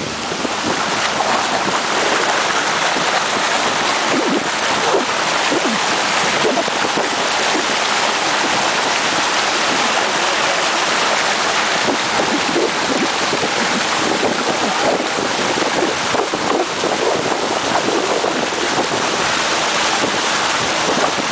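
Steady rushing noise of a small motorboat under way: water rushing along the hull mixed with wind buffeting the microphone.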